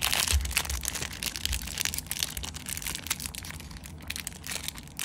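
Zippo lighter being handled close to the microphone: a dense, continuous crackle of small clicks and rubbing, with a few sharper knocks.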